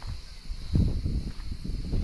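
Outdoor wind gusting against the microphone, rumbling louder about three-quarters of a second in.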